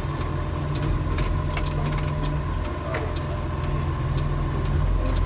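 Garbage truck engine running, heard from inside the cab: a steady low rumble with a faint steady high tone and scattered light clicks and rattles.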